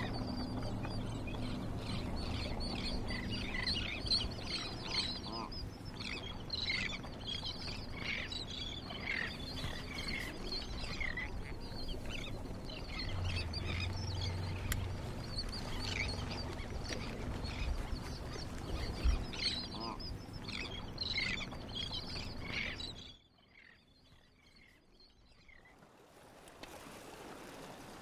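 A flock of South American terns calling over and over with short, high cries, over the low steady hum of a boat's idling motor. Both stop abruptly about 23 seconds in, and after a short near silence a faint steady hiss begins.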